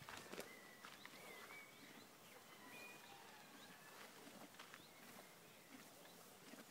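Faint outdoor quiet with soft, scattered clicks of a Holsteiner horse chewing hay close by, and a few short, thin bird calls.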